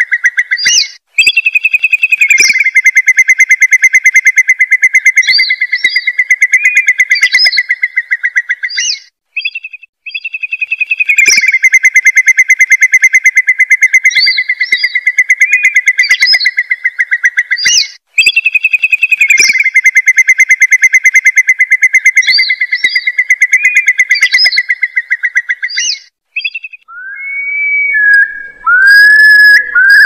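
Recorded lure call of the gajahan, a curlew: long, fast, rippling trills with rising notes laid over them, repeating in near-identical cycles of about seven to eight seconds. Near the end the loop changes to shorter rising and falling whistles.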